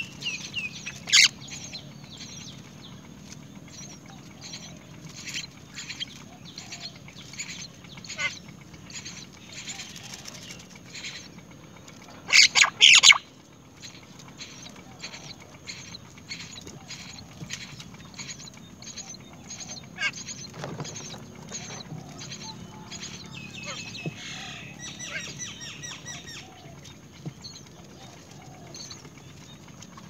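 Great mynas at the nest: a steady run of short calls and small rustles, with a loud cluster of calls about twelve seconds in and a quick series of repeated pitched calls near the twenty-five second mark.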